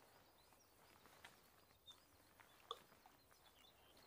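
Near silence, with a few faint, short bird chirps.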